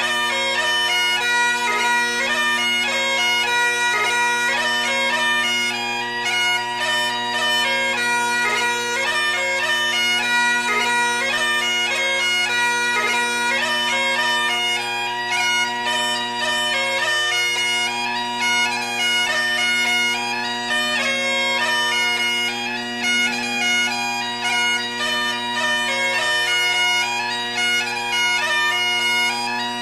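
Bagpipe music: a steady drone held under a melody of quick changing notes.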